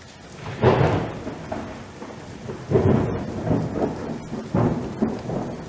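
Thunderstorm sound effect: three rolls of thunder, each swelling up and fading, over steady rain.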